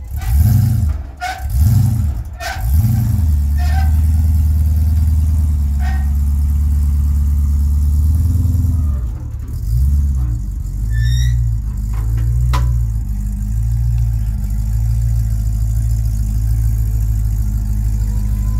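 Car engine revved in several quick throttle blips, held at steady revs for a few seconds, blipped twice more, then settling into a lower, even run.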